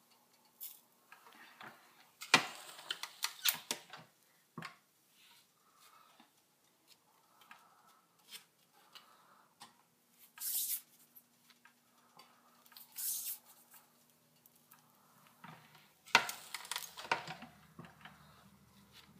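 Light clicks and clunks of an electric tortilla press being worked by hand as its hinged metal lid and pressing handle are moved to flatten dough balls. The clicks come in clusters, about two to four seconds in and again near the end, with a couple of short rustles between them.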